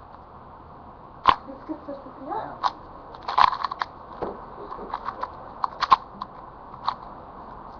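Rubik's cube being turned by hand: irregular plastic clicks and clacks as its layers are twisted, with a sharp one about a second in, a quick cluster around three and a half seconds, and scattered turns after that until near the end.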